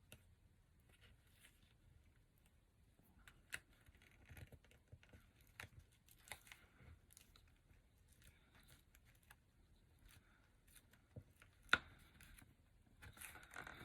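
Faint rustling and crinkling of ribbon and cardstock being handled while a ribbon bow is tied, with scattered light clicks and taps, two of them sharper, about three and a half seconds in and near the end.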